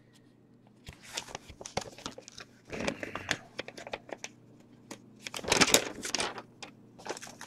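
Paper envelopes rustling and crinkling as they are handled, in irregular bursts, loudest about five and a half seconds in.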